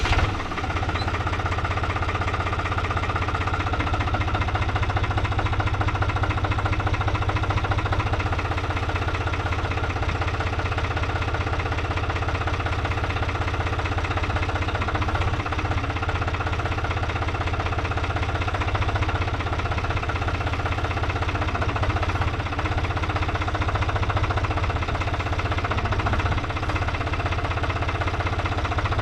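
Tractor engine running steadily at an even speed, with a dense low rhythmic pulse throughout.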